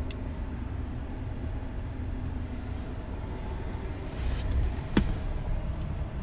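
GMC Sierra pickup's 5.3-litre V8 idling, a steady low rumble heard from inside the cab. A single sharp click sounds about five seconds in.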